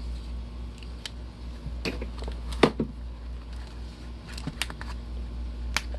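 Cardboard trading-card box being unfolded and handled: scattered light clicks and crackles, with one sharper knock a little before halfway, over a steady low hum.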